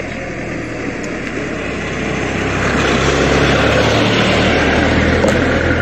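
A motor vehicle's engine running close by as it drives up, a steady low hum that grows louder from about two seconds in.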